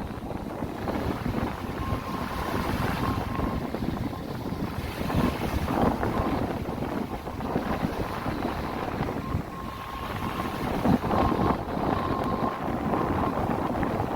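Wind buffeting the microphone over the wash of sea waves: a steady, heavy rushing noise that swells and eases.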